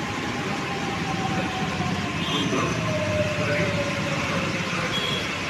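Metro train pulling into the station behind the platform screen doors, running steadily with a whine that falls slowly in pitch as the train slows.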